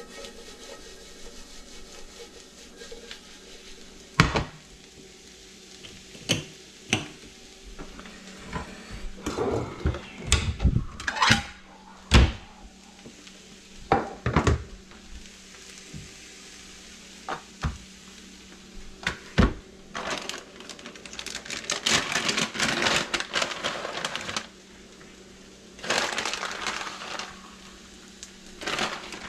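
Kitchen counter prep: a string of knocks and clunks as a plate, a plastic cutting board and utensils are set down on a stone countertop, then longer spells of plastic-bag rustling as shredded cheese is shaken out of its bag onto tortillas. A low steady hum runs underneath.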